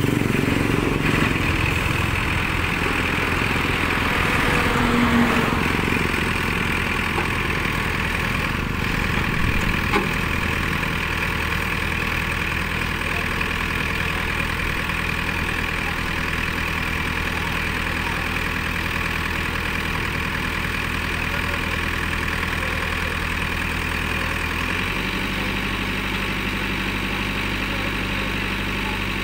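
Diesel engine of a JCB 3DX backhoe loader running steadily while its hydraulic arm works, a little louder in the first few seconds; the engine note shifts about 25 seconds in.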